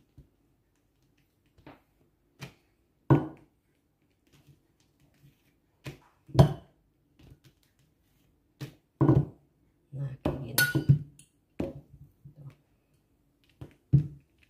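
Stainless-steel rolling pin rolling out pastry dough on a plastic-covered table, with irregular clunks and knocks as the metal pin meets the table, about a dozen in all, thickest about ten seconds in.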